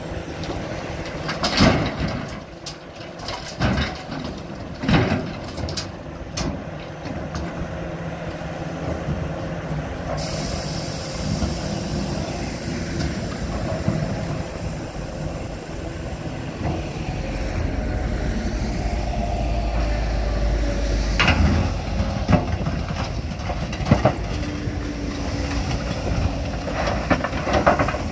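Volvo EC480 L excavator's diesel engine running steadily under hydraulic load, with loud crashing clatters of broken asphalt chunks dumped from the bucket into a steel tipper body, several in the first few seconds. The engine rumble swells a little past halfway, and a few more sharp knocks come near the end as the bucket works the pile.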